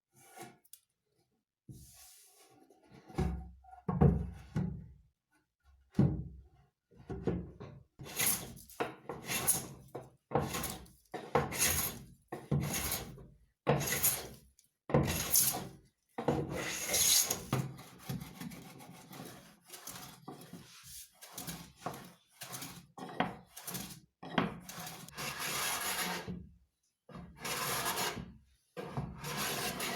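Hand tool working wood in repeated scraping strokes, roughly one a second, after a few low thumps near the start.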